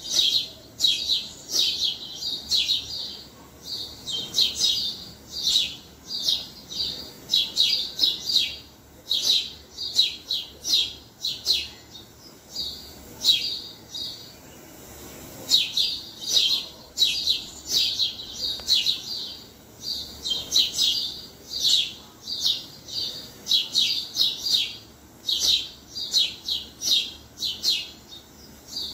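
House sparrows chirping: a busy run of short, sharp chirps, several a second, with a brief lull about halfway through.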